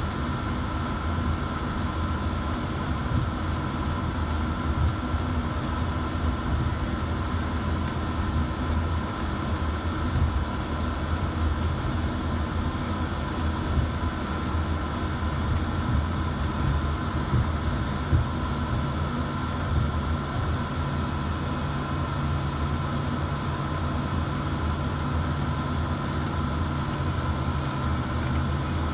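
Steady cabin noise of a jet airliner taxiing on the ground: the engines running at idle with a constant whine over a low rumble. A low hum joins about halfway through.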